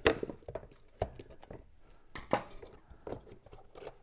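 Irregular plastic knocks and clicks from the projector lens unit of a Valeo headlamp being worked loose inside its plastic housing, the sharpest right at the start.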